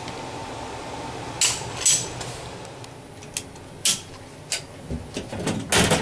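Metal tools and parts being handled: a string of sharp clinks and knocks at irregular intervals, the loudest cluster near the end, over a steady hum that stops about a second and a half in.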